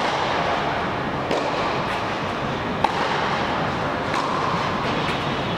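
Tennis warm-up rally: a few sharp racket-on-ball hits, roughly a second and a half apart, over a steady hiss of arena background noise.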